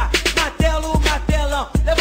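Music with a steady, heavy bass beat and a pitched melodic line over it.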